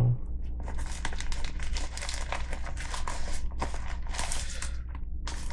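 Plastic bags and paper packets crinkling and rustling irregularly as hands rummage through the contents of a nylon first aid kit pouch.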